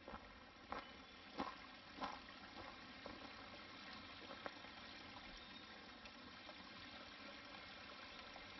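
Small, shallow mountain creek trickling steadily over pebbles, faint. In the first couple of seconds there are a few footsteps on the forest floor, about two-thirds of a second apart.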